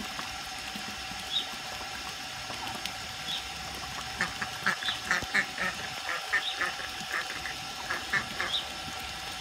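Ducklings peeping: a rapid run of short calls starting about four seconds in, with a lone high peep recurring every couple of seconds throughout.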